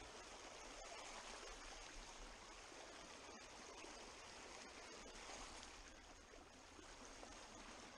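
Faint, steady rush of a shallow river riffle running over stones.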